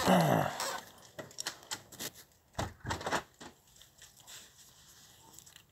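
Clicks and knocks of a door handle and latch as a door is worked open and shut, the loudest knocks about two and a half to three and a half seconds in, then fading to a few faint ticks.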